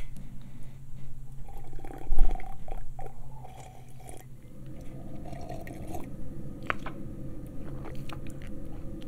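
A person sipping a drink from a mug, with slurping and swallowing and small mouth clicks. The loudest sip comes about two seconds in.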